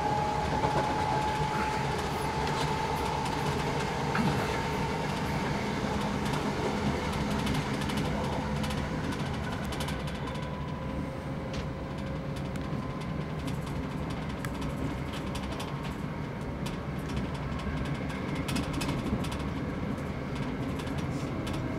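Passenger train running, heard from inside the carriage: a steady rumble with a faint whine.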